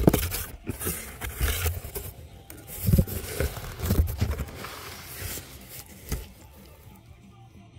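Crumpled packing paper rustling and a cardboard box scraping as hands dig through it to uncover wooden medals, with a few dull knocks about three and four seconds in; the handling dies down near the end.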